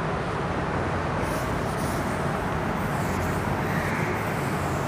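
Steady background hiss and hum, with faint brushing from about a second in as a felt duster wipes chalk off a blackboard.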